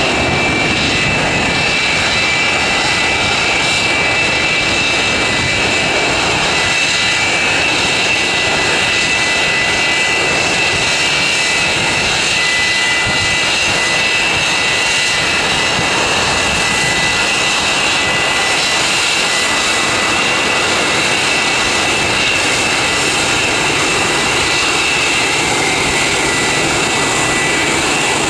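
Boeing 727-200's three Pratt & Whitney JT8D turbofan engines at taxi power: a loud, steady jet rush with a high whine over it.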